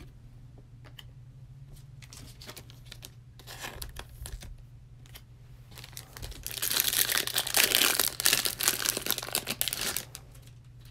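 Light rustles and clicks as a foil trading-card pack is picked up and handled, then a loud run of crinkling and tearing for about three seconds past the middle as the foil wrapper is torn open.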